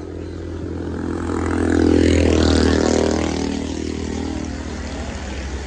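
A motor vehicle passing on the road: its engine grows louder to a peak about two seconds in, then fades away.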